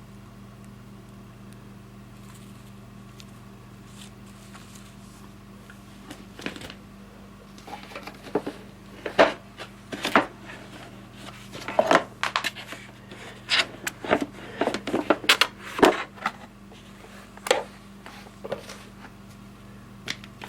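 Irregular clicks, knocks and rustles of objects being handled, over a steady low hum; the handling starts about six seconds in and dies away near the end.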